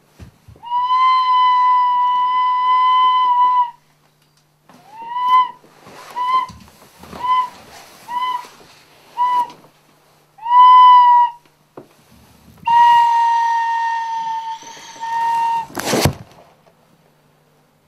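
A high, pure whistling tone held on nearly one pitch: a long note, then a run of short notes that each scoop up into the pitch, another short note, and a long note that sags slightly. A sharp knock comes near the end.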